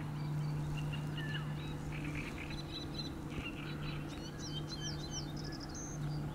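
A flock of European starlings calling while feeding: a busy run of short whistles, chirps and clicks, over a steady low hum.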